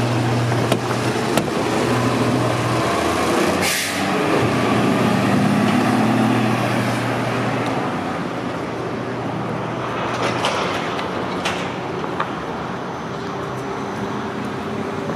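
Diesel engine of a Pierce Saber fire engine running, with a short hiss of air brakes just before four seconds in. The engine then rises as the truck pulls away and gradually fades.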